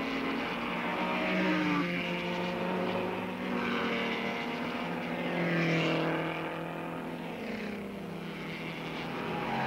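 Racing car engines running hard as vintage MG race cars pass, the engine note sliding up and down in pitch, loudest about six seconds in.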